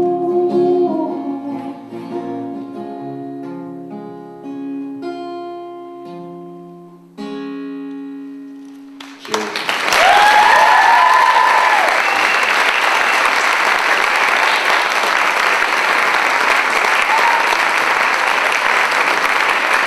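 Acoustic guitar playing the closing plucked notes of a song, the last sung note fading at the start and the final notes left ringing. About halfway through, loud audience applause breaks out, with a few cheers and whoops, and keeps going.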